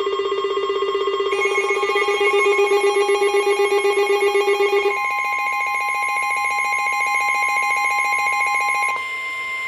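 Weather-radio emergency alert tones. A low, rapidly pulsing alarm tone, joined by further steady tones after about a second, stops about five seconds in, and a single steady warning tone takes over: the NOAA Weather Radio 1050 Hz warning alarm that comes before a warning message.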